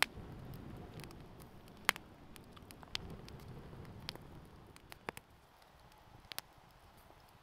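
Wood fire crackling, with sharp irregular pops and snaps over a low rush of flames that dies down after about five seconds.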